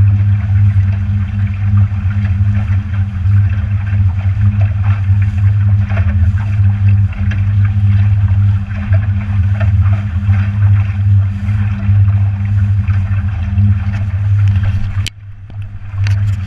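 Motorboat engine running at a steady drone, with wind and water rushing past the hull. Near the end there is a sharp click, and the sound drops away for about a second before coming back.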